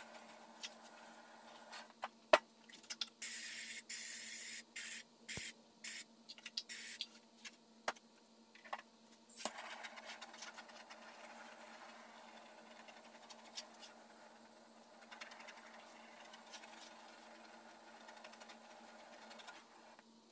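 A sharp click, then compressed air hissing from a hand-held air nozzle in a quick series of short spurts. From about halfway a propane torch's flame runs with a steady soft hiss.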